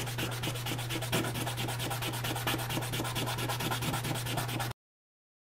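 Plastic twisty-puzzle piece being hand-sanded on wet 400-grit sandpaper laid flat on a table: a scratchy rasping in quick, even back-and-forth strokes. The sound cuts off suddenly near the end.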